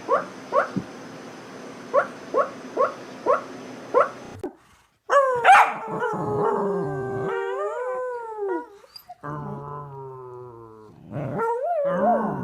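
Dog vocalising: a run of about seven short rising yelps, then after a sudden break long wavering howls and a drawn-out moaning call.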